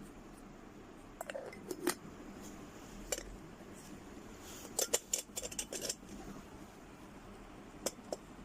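Metal parts of a moka pot clinking and knocking as it is handled: a few knocks, then a quick flurry of clinks about five seconds in, and two more clicks near the end.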